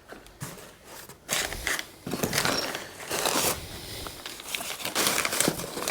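Packaging rustling and crinkling, with scattered clicks and knocks of parts being handled while unpacking.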